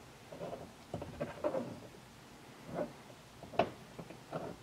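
Faint, scattered clicks and light scrapes of a bolt and bracket being fitted by hand at a car's seatbelt anchor. The sharpest click comes about three and a half seconds in.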